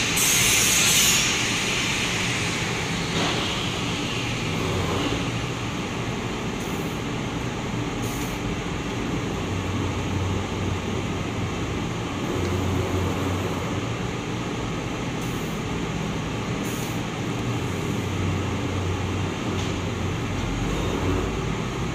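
Two-colour UV-curing screen printing machine with three servo motors running, a steady mechanical hum and rumble with a few short clicks scattered through it.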